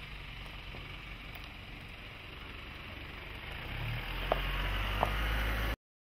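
Toyota Land Cruiser crawling down a steep offroad descent and then driving past at low speed: a low engine rumble over a steady hiss, growing louder a little before the four-second mark as the vehicle comes close, with two sharp clicks about a second apart. The sound cuts off abruptly shortly before the end.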